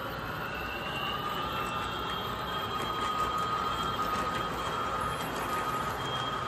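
O gauge model train running on three-rail track: a steady rolling rumble of wheels with a thin high squeal that comes and goes.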